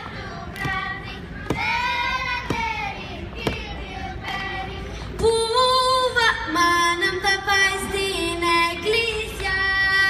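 A girl singing a Greek folk song from Thrace unaccompanied, a cappella, into a microphone. Sharp knocks come about once a second under her voice in the first half. From about five seconds in her voice gets louder, with long held notes stepping in pitch.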